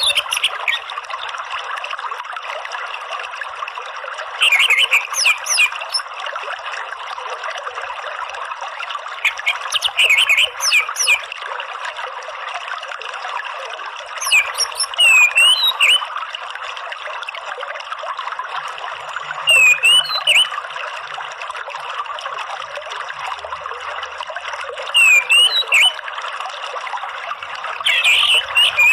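Orange-headed thrush giving short bursts of high, squeaky twittering calls about every five seconds, over the steady rush of a running stream.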